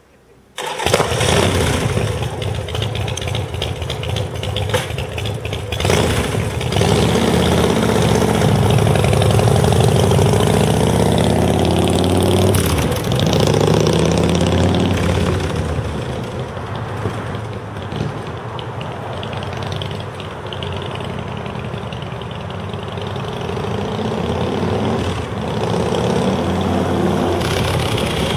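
Big Dog chopper's air-cooled V-twin motorcycle engine starting about a second in, then running and revving up and down as the bike rides away and back past.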